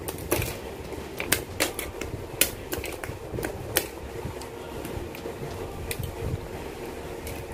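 Hobby side cutters snipping plastic model-kit parts off the runner and trimming the gates: a series of sharp snips at uneven intervals, over a steady background hum.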